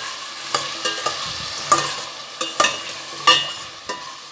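A metal ladle stirs carrot and zucchini pieces in a stainless steel pot, scraping and clinking against the pot several times, each knock ringing briefly. The vegetables sizzle softly in oil underneath.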